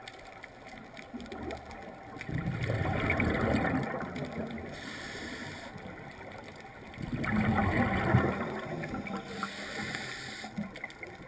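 A scuba diver breathing through a regulator underwater: twice a loud bubbling rush of exhaled air, each followed by a shorter hiss.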